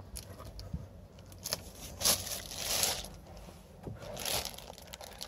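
Crinkling and rustling of the protective wrapping inside a new car's cabin, in several short bursts as it is handled or pressed.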